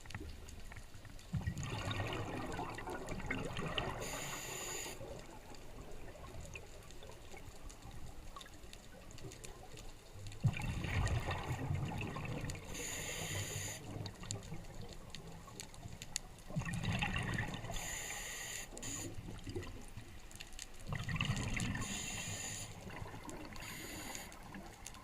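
Ocean surf washing in and out in four surges a few seconds long, with wind rumbling on the microphone.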